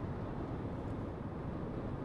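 Steady rumble of tyre and engine noise inside a car's cabin at highway speed.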